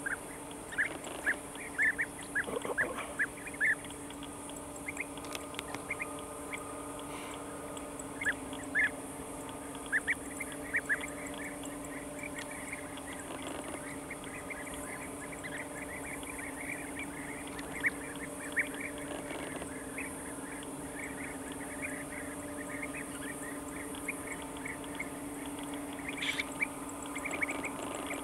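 European bee-eaters calling: short, sharp calls repeated many times at irregular intervals, over a steady low hum.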